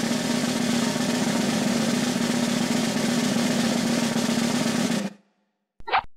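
Cartoon suspense snare drum roll, steady, that cuts off suddenly about five seconds in, followed by a short high blip near the end.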